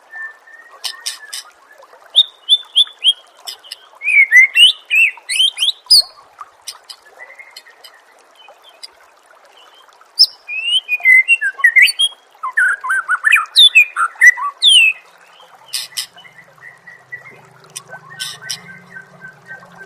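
Songbird song from a masteran bird-training recording: phrases of rising and falling whistles mixed with sharp chattering notes, loudest in the middle. A steady low hum comes in near the end.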